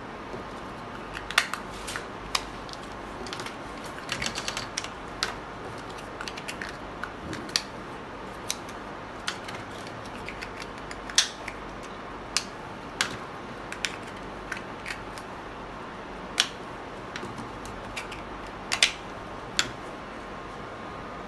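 Irregular light clicks and taps of plastic screw caps and foil induction-seal liners being handled, pressed together and set down on a tabletop, a few of them sharper than the rest, over a steady background hiss with a faint steady tone.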